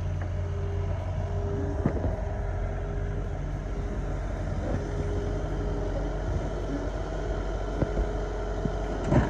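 Diesel engine of a CAT 308 mini excavator running steadily with a low hum, with a few short knocks and clanks as its grapple handles debris, and a louder clank near the end.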